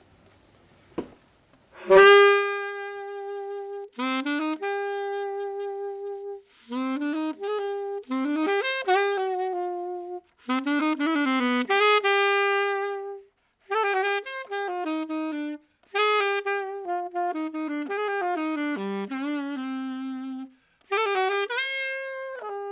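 Solo alto saxophone playing a slow tango melody: one long-held note at a time, phrases separated by short breath pauses. It enters strongly about two seconds in, after a brief quiet start.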